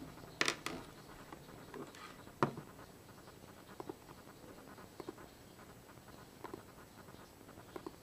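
Light clicks and handling knocks: a cluster of sharp knocks near the start and a louder single one a couple of seconds in, then small double clicks about every second and a half.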